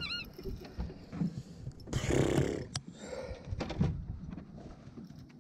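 A small bass flopping on an umbrella rig as it is swung out of the water: a short, loud noisy burst about two seconds in, with scattered knocks and clicks of the fish and the rig.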